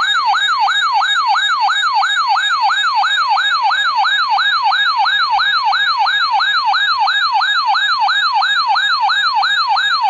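Electronic siren-style alert tone, sweeping rapidly up and down about three times a second. It is an alarm warning of an incoming weather emergency alert.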